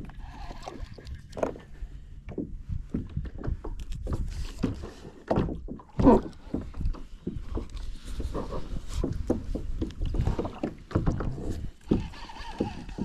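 Irregular knocks and rubbing on a kayak as it and the fishing gear are handled, with a heavier knock about six seconds in.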